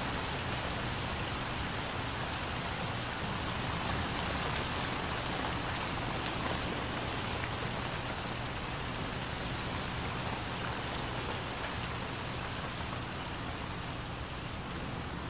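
Steady rain falling on a swimming pool's water and the wet concrete deck around it: an even hiss with scattered drop ticks, growing slightly softer toward the end.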